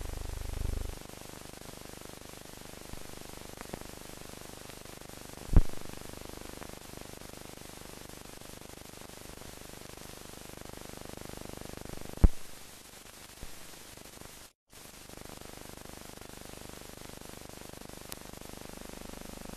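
Steady hiss of an old film soundtrack with no voice or music. A low rumble stops about a second in, two sharp clicks come several seconds apart, and the sound drops out completely for a moment about three quarters of the way through.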